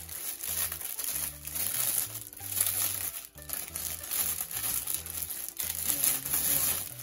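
Packaging crinkling and rustling as it is handled, in quick irregular bursts of rustle, with background music's low stepping bass line underneath.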